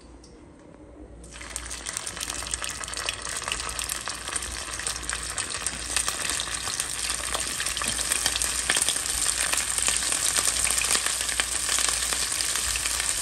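Pressed rounds of white rice frying in hot oil in a pan, sizzling and crackling. The sizzle starts about a second in as the first rounds go into the oil and grows louder as more are added.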